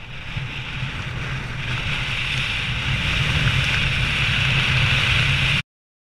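Wind rushing over an action camera's microphone during flight under a parachute canopy: a steady noise that grows a little louder, then cuts off suddenly near the end.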